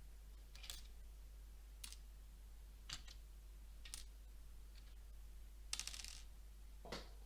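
Small plastic Lego pieces being handled, clicking and tapping against each other about once a second, with a short rattle of pieces just before six seconds in.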